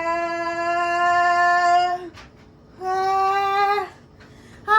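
A person singing long held "ooh" notes. One steady note ends about two seconds in, and after a short pause a shorter, slightly higher note follows.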